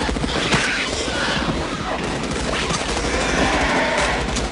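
Continuous rapid rifle fire from many guns at once, the movie sound effect of the troopers' Morita assault rifles firing on full auto in a dense, unbroken volley.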